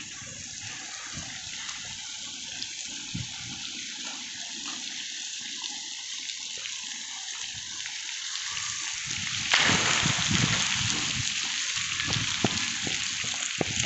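Water jets of a splash pad spraying and splashing onto the play surface, a steady hiss of running water that grows louder about nine and a half seconds in.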